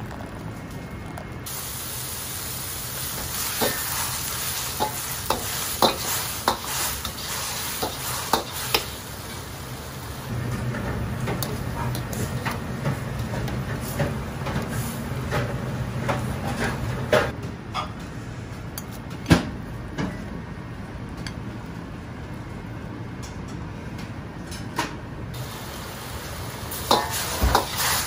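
Wok cooking on a gas range: a steady rush of burner and boiling water, food sizzling as it is stir-fried, and frequent sharp clacks of metal utensils against the wok.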